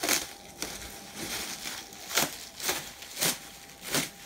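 Bubble wrap and plastic film crinkling and rustling as they are pulled off a large wrapped statue, in a series of short crackles about every half second.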